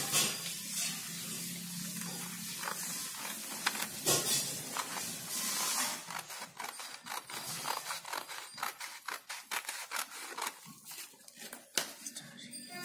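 Small scissors cutting through folded sheets of craft paper: a long run of snips, with paper rustling as the sheet is handled.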